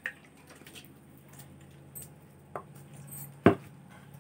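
Small clicks and taps of fingers and a plastic plate while food is mashed by hand, with one sharp knock about three and a half seconds in as the plate is set down on the table. A faint steady low hum runs underneath.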